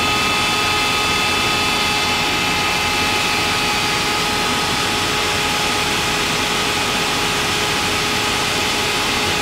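Steady jet-engine drone and airflow hiss from a Boeing 747-200 flight simulator's cockpit sound on approach, with several steady high whines over the noise; one of the whines drops out about six seconds in.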